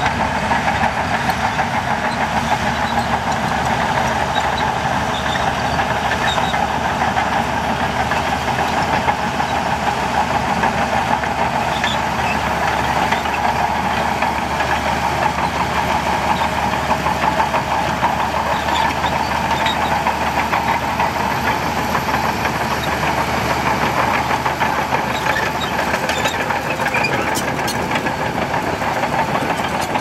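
Heavy diesel earthmoving machinery running steadily, with a constant engine drone and knock and no break or change in pitch.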